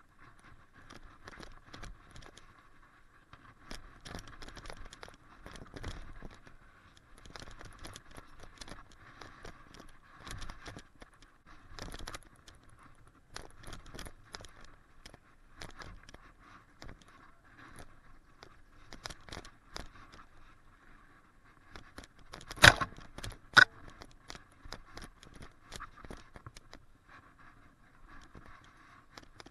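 Mountain bike descending a rough, wet forest trail, picked up by a bike-mounted action camera: a constant clatter and rattle of chain and bike over stones and roots. Two sharp, much louder knocks come about a second apart late on.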